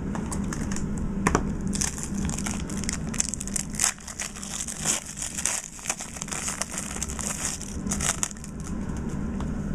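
Crinkling plastic wrapper of a Topps Stadium Club basketball card pack as it is handled and opened, with irregular crackles, busiest from about two seconds in to near the end.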